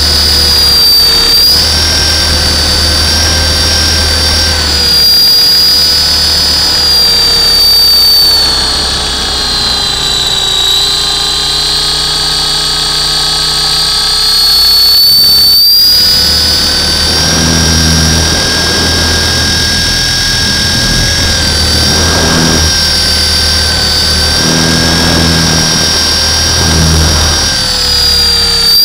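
Radio-controlled Hughes 300 model helicopter in flight, heard from its own onboard camera: a loud steady high-pitched motor-and-rotor whine over a low rumble. The pitch sags a little about a third of the way in and climbs back to its earlier level about halfway through.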